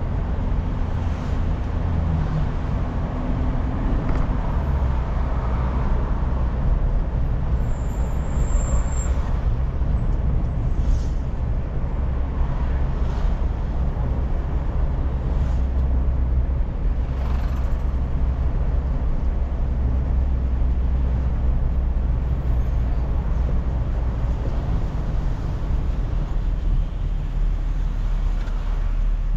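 A car's engine hum and tyre road noise, heard from inside the cabin while driving: a steady low rumble that hardly changes in level.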